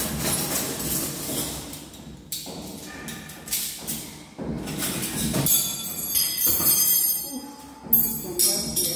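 Metal cutlery clinking and jingling as handfuls of forks, knives and spoons are lifted out of a cardboard box, among rustling of the cardboard and wrapping and a few knocks. The metallic ringing is strongest a little past the middle, with a sharp knock near the end.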